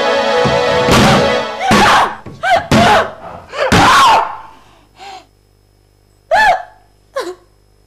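A woman sobbing and wailing in a string of anguished cries, each rising and falling in pitch, getting shorter and further apart toward the end. Background music stops about a second in, with a sudden thud.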